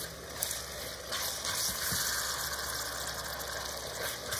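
Sliced onions and diced bell peppers sizzling in oil in an enamelled cast-iron pot while being stirred with a silicone spatula. A steady hiss, with a few light knocks of the spatula against the pot.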